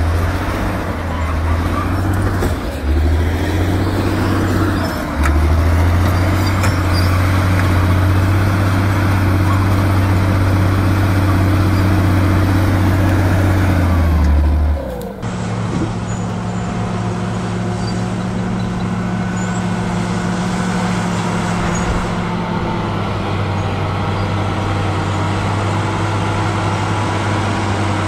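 Shantui SD16 crawler bulldozer's diesel engine running steadily under load as it pushes earth, a loud low drone. About halfway through the sound cuts to another bulldozer's engine running at a steady pitch.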